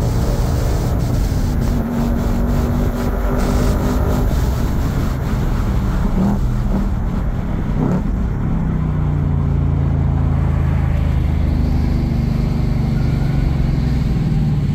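Ford Mustang Dark Horse's 5.0-litre V8 heard from inside the cabin under way on a race track, loud and steady. Its note sweeps up briefly about halfway through, then settles into a lower, even drone.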